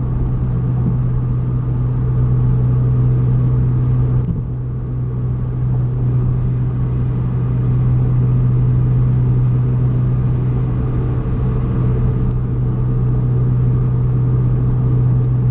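Honda Fit's four-cylinder engine droning steadily at highway cruise, turning high revs through short 4.928 final drive gears, with road noise, heard inside the cabin. The drone eases briefly about four seconds in, then holds steady.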